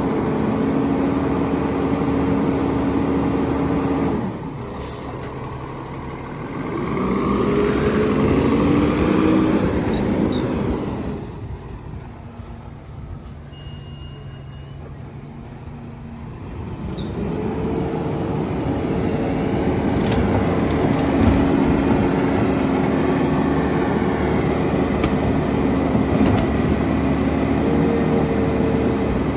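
Lodal split-body side-loader garbage truck: its engine and hydraulic packer run with a steady hum that drops about four seconds in. The truck then pulls away, the engine rising in pitch and fading, and the steady packing hum returns in the last third.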